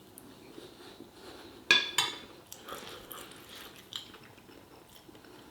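Cutlery clinking and scraping against a plate while eating, with two sharper clinks about two seconds in.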